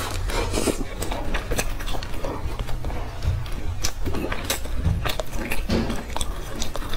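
Close-miked eating sounds of a person chewing a soft chocolate-filled pastry: a steady run of sharp mouth clicks and smacks over a low rumble, with finger-licking partway through.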